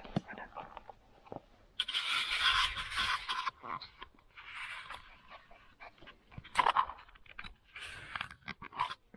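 Miniature pinscher puppy panting and snuffling in short noisy bursts, loudest about two seconds in and again near seven seconds.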